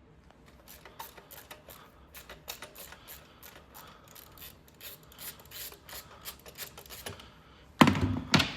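Ratchet and spark plug socket clicking in quick runs as the spark plugs are undone on a 1.25 Zetec engine, followed by a couple of louder knocks near the end.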